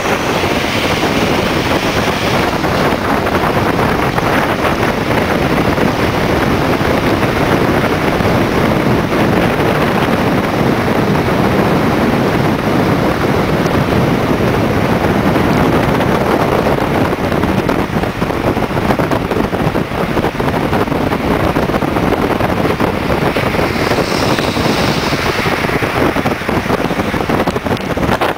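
Steady road and wind noise of a moving car, heard from inside, with wind rushing over the microphone.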